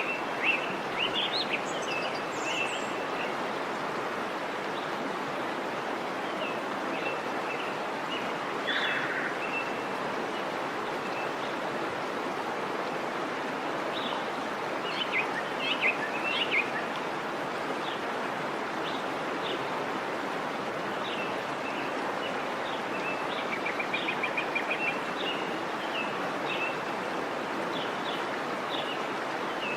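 Steady rush of a waterfall, with small birds chirping over it in short scattered calls and a quick trill about two-thirds of the way through.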